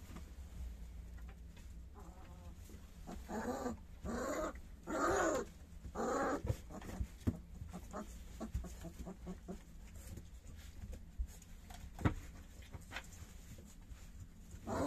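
Three-week-old puppies whimpering: four short whining cries in quick succession a few seconds in, then quiet shuffling, and one more cry at the very end.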